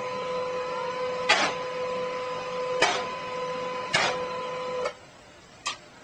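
Desktop printer running with a steady whine, broken by three sharp clacks; the whine stops abruptly about five seconds in, followed by a single click.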